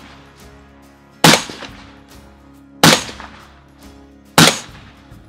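Scoped rifle fired three times, about a second and a half apart, each shot with a short echoing tail; the tail of an earlier shot fades away at the start.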